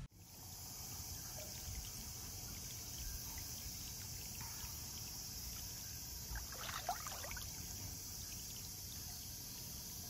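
Steady high-pitched chorus of summer insects, most likely cicadas, over a faint trickle of water. A brief chirping call comes about six and a half seconds in.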